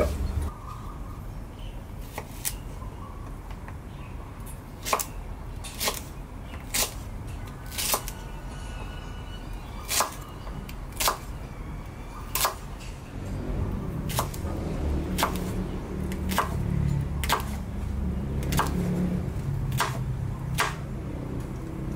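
Chef's knife chopping okra on a wooden cutting board: sharp knocks of the blade on the board, about one a second at first and coming faster later. A low rumble joins about halfway through.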